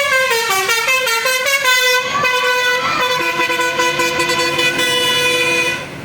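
Telolet bus horn, a set of musical air horns on an Indonesian bus, playing a quick stepping run of notes. It then holds one loud chord for about four seconds and cuts off suddenly just before the end.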